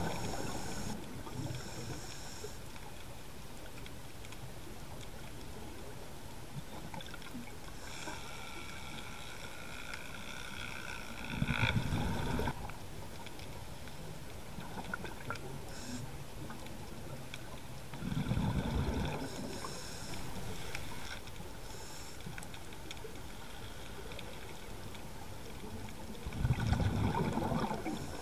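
A scuba diver breathing through a regulator underwater: three bubbling bursts of exhaled air, about every seven to eight seconds, with a softer steady hiss of inhalation between them.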